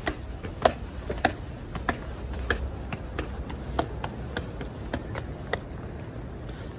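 Footsteps climbing stone stairs and then walking on paved sidewalk, a sharp click a little under twice a second, growing fainter near the end, over a low steady rumble of city traffic.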